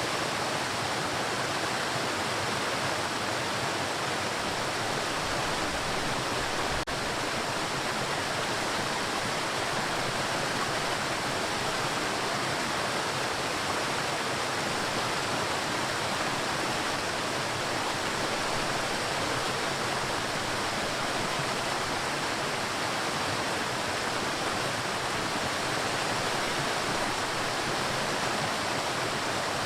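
Waterfall: a steady, even rush of falling water with no let-up. A single faint click with a momentary dip in level about seven seconds in.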